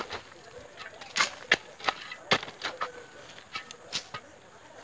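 Steel digging bar being driven down into a post hole by hand, striking the soil and stones with sharp, irregular knocks, about eight in all.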